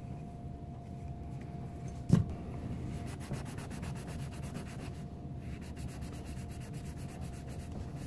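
Abrasive cloth rubbed rapidly back and forth over the steel shaft of a furnace draft inducer motor, a quick rhythmic scraping that pauses briefly about halfway, with one sharp knock about two seconds in.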